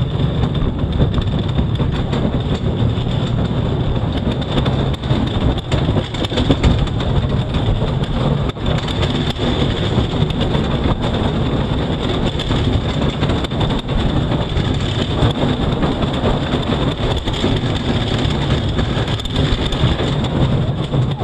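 Bobsled running fast down an ice track, its steel runners rumbling and rattling over the ice in a steady loud roar with scattered sharp clicks, heard from a helmet-mounted camera.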